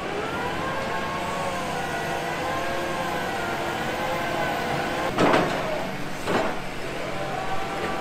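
Bauer BG 28 H rotary piling rig running steadily, its diesel engine carrying a slowly wavering whine. Two short bursts of noise come about five and six seconds in.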